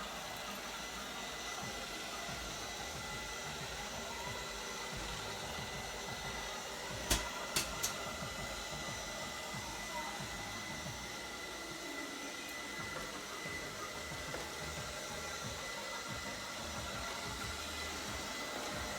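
ILIFE V5s Plus robot vacuum-mop running, a steady whir with a faint high whine over it. Three sharp knocks come close together about seven to eight seconds in.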